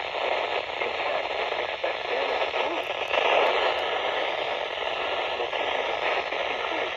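Weather radio receiver giving out steady static hiss on a weak signal, with a few faint crackles. The noise comes from lightning interfering with reception.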